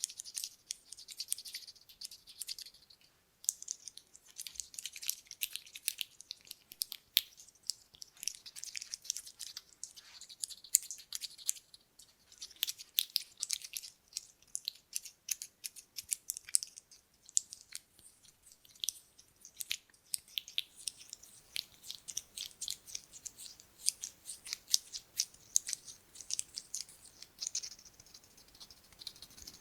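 Buttons handled close to the microphone, making many light, rapid clicks and rattles against each other, with a short pause about three seconds in.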